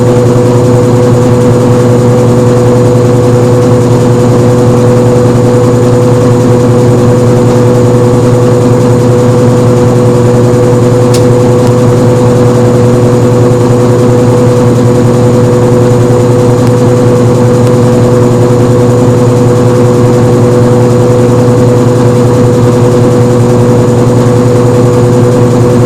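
Washing machine on its spin cycle: a steady mechanical hum with several held tones, unchanging throughout, and a single faint click about eleven seconds in.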